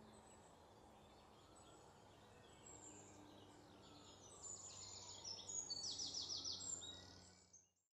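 Faint outdoor ambience with birds chirping. In the second half a bird gives quick runs of high chirps, several a second, and then the sound fades out near the end.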